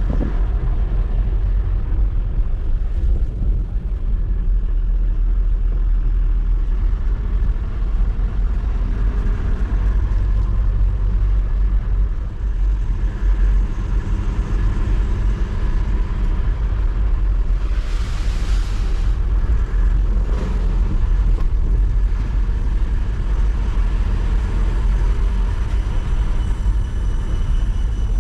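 Mahindra Bolero 4x4 pickup's diesel engine and tyres running steadily while driving, a heavy low rumble, with a brief hiss about eighteen seconds in.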